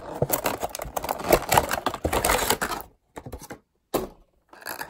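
Rigid clear plastic blister packaging crackling and clicking as it is handled: a dense run of crinkles for about three seconds, then a few short rustles with brief silences between them.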